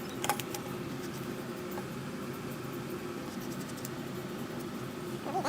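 Faint metallic clicks and a short squeak from handling the AR9 while its muzzle brake is being unscrewed, over a steady room hum.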